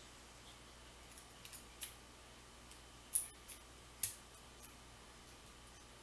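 Small sharp metallic clicks as a steel circlip is worked onto the back of a lock cylinder's plug with a small tool: a few faint ticks, then clearer snaps about three and four seconds in.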